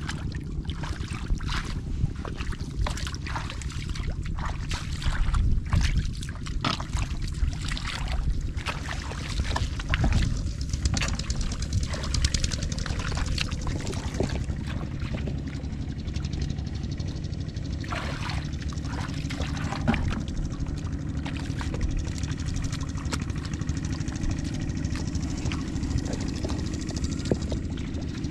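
Hands splashing and squelching in shallow muddy water while groping through the mud for fish, in many short irregular splashes. Under them runs a steady low rumble.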